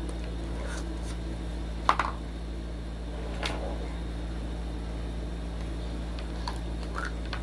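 Steady low hum in a small room, with a few sharp clicks and taps of small plastic toy pieces being handled; the loudest click comes about two seconds in.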